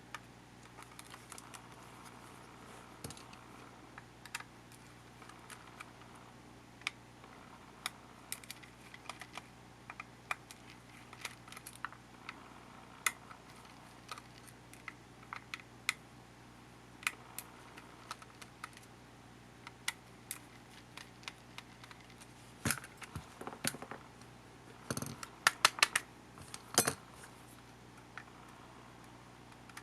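Small irregular clicks and taps of tools and small plastic and metal parts being handled while a camcorder is taken apart, with a quick run of louder clicks about three-quarters of the way through. A faint steady hum lies underneath.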